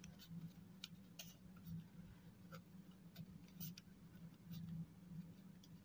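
Faint scratching of a pen writing on paper in short, irregular strokes, over a faint steady low hum.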